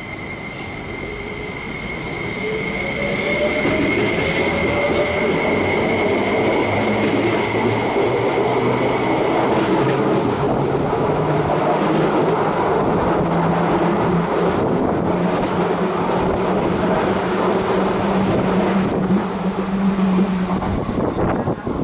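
MTR SP1900 electric multiple unit accelerating away from the platform and passing close by. Wheels rumble on the rails, louder over the first three seconds, under a motor whine that rises in pitch as the train gathers speed. A high steady whine fades out about ten seconds in, and the sound falls away at the very end.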